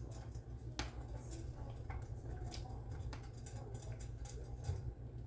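Spoon stirring macaroni in a pot, with irregular light clicks and taps of the spoon against the pot.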